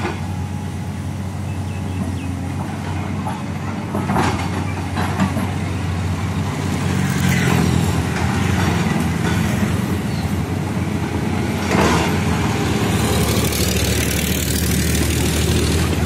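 The diesel engine of a LiuGong 922D crawler excavator runs steadily while it digs, with a few short knocks. Road vehicles, among them a tractor, pass close by and make the sound louder partway through.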